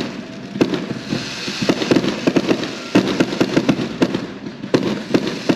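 Fireworks going off in quick, irregular succession: many sharp bangs and crackles, typical of a multi-shot firework cake firing.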